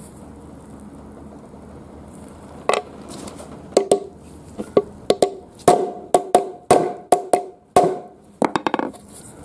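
Hammer striking a bent steel chain-adjuster plate laid on a wooden board to straighten it. The blows are sharp and come in an uneven run starting about two and a half seconds in, many with a short metallic ring.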